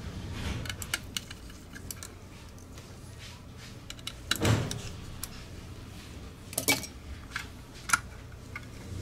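Small sharp clicks, taps and scrapes of a fine screwdriver against the plastic shell and parts of a wireless gaming mouse being taken apart, with a louder clatter of handling about four and a half seconds in and crisp clicks near seven and eight seconds, over a low steady hum.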